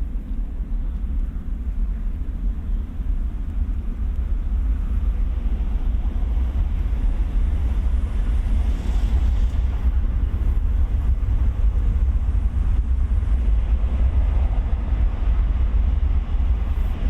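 A steady low rumble with a hiss of noise above it, holding level throughout.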